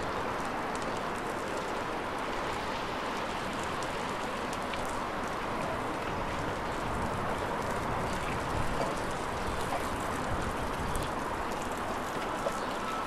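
Steady outdoor background rush, a little louder in the second half, with a few faint clicks.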